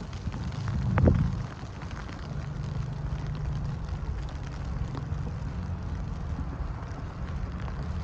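Wind rumbling on the microphone in a snowstorm, swelling to a gust about a second in, over the steady low hum of a vehicle engine running nearby.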